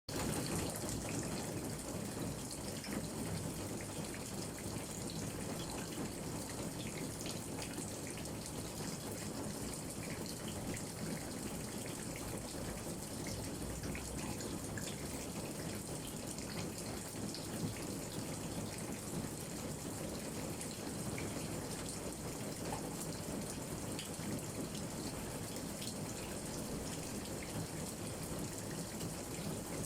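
Steady rain falling on a garden, with scattered drops pattering on leaves.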